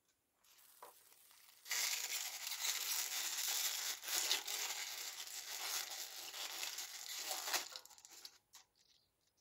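Crinkly wrapping on a small toy being torn and crumpled open by hand: a dense crackling rustle that starts about two seconds in, runs about six seconds and stops suddenly, with a few fainter rustles before and after.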